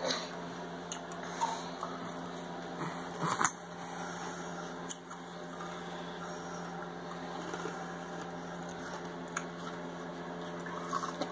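A baby mouthing and gumming a teething chew stick: a few soft, wet clicks and squishes over a steady background hum.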